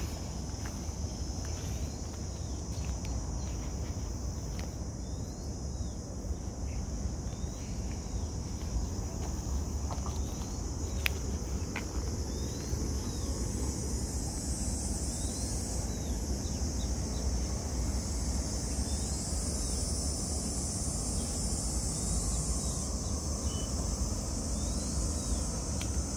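A steady, high-pitched insect drone throughout, with a second, higher insect buzz coming in about halfway, breaking off briefly, returning and stopping near the end. Faint short chirps repeat every second or so over a low rumble.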